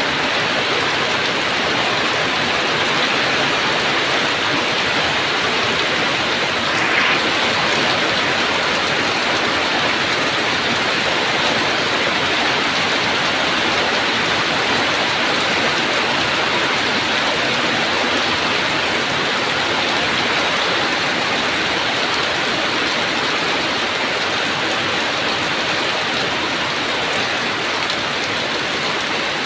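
Heavy rain falling steadily, a dense even hiss of drops on surfaces, with one brief louder patter about seven seconds in.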